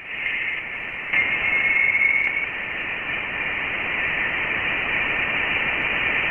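Sonification of light data from the Orion Nebula: a steady static-like hiss, strongest in a high band, with a faint thin tone in it that fades out about two and a half seconds in.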